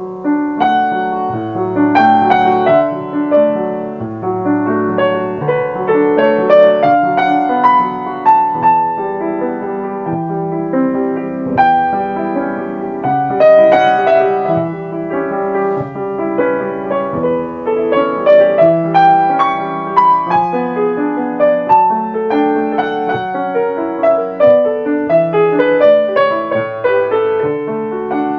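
Yamaha grand piano played solo: a continuous flowing passage of many overlapping notes, with a melody in the middle register over steady bass notes.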